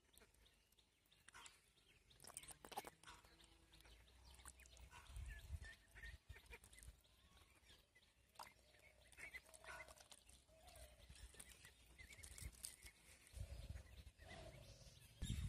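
Near silence: faint outdoor ambience with scattered soft clicks and brief, faint chirps.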